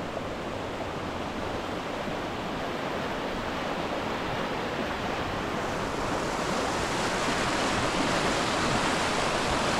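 Waterfall: a steady rush of falling water that grows slowly louder.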